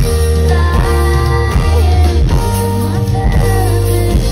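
Loud live band music: electric guitar over bass and drum kit, the song's instrumental passage with no lyrics sung.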